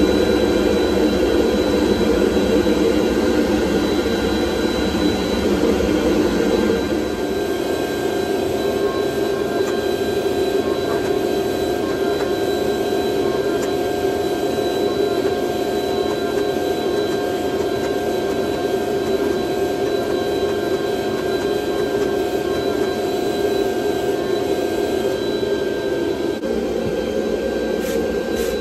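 Forging-shop machinery running steadily with a loud, even rushing noise and a few fixed whining tones; the sound shifts slightly at about seven seconds, and a few faint clicks come near the end.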